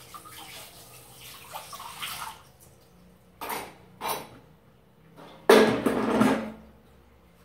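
Hand-washing dishes at a sink. Water runs from the tap for the first two seconds or so, then come two short knocks of dishes. About five and a half seconds in there is a louder burst of about a second, water and clatter as the plastic washing-up basin is lifted and moved.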